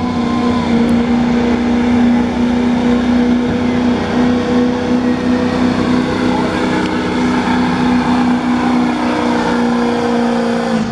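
Chevrolet Silverado's Duramax diesel V8 held at high revs under full load while the pickup pulls a weight-transfer sled. The engine note stays steady and loud.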